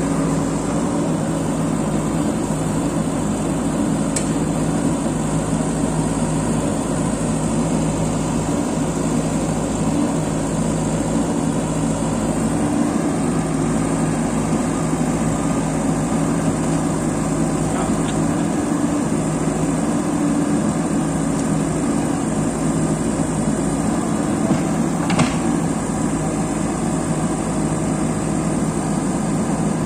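JCB 3DX backhoe loader's diesel engine running steadily under load while the stuck machine works its hydraulic backhoe arm against the mud to lever itself free. A single short clack sounds near the end.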